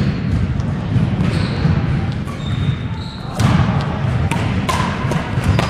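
Badminton hall din: sneakers squeaking on the wooden court floor and sharp racket hits on shuttlecocks. The hits come thicker from about three and a half seconds in, over a rumble of echoing voices in the gym.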